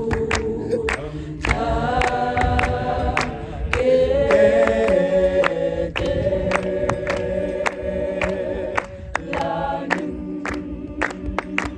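A cappella choir singing held chords in close harmony, clap-and-tap style, with sharp hand claps and foot taps sounding several times a second over the voices.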